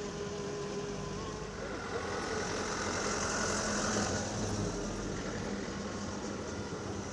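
Road traffic: motor vehicle engines running steadily, with a swell as a vehicle passes about three to four seconds in.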